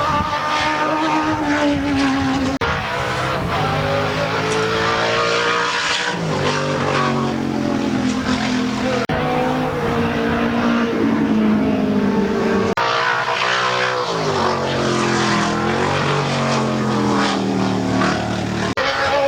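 Classic single-seat race car engines run hard. Their pitch climbs through each gear and falls back at every shift, over several passes broken by sudden cuts.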